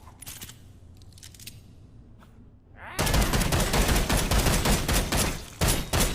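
Handgun gunfire sound effect: a few faint clicks, then from about three seconds in a rapid, continuous volley of shots, a brief break, and one more short burst near the end.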